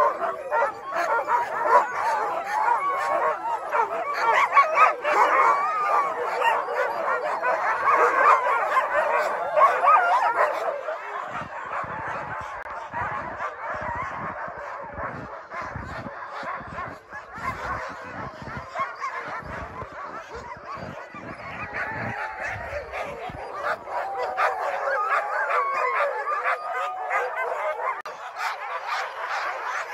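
A team of harnessed sled dogs barking and yipping together in a dense, overlapping chorus. The chorus drops back for a stretch in the middle, where low irregular thuds come through, then builds again near the end.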